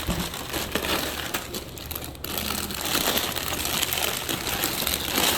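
Plastic-wrapped snack packages crinkling continuously as they are handled and loaded into a vending machine's slots.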